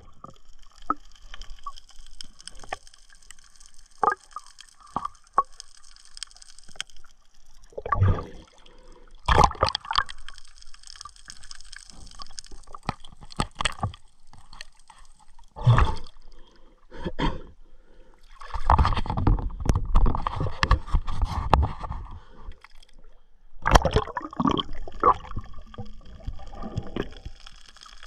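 Underwater water gurgling and sloshing, broken by several short loud surges and one longer rush of water lasting about three seconds, about two-thirds of the way in.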